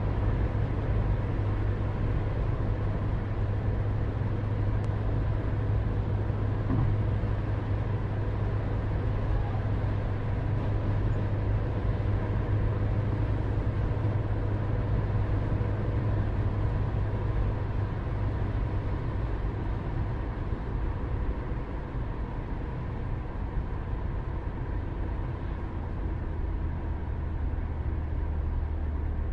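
A steady low mechanical drone with faint constant tones above it. It eases slightly lower in pitch over the last several seconds.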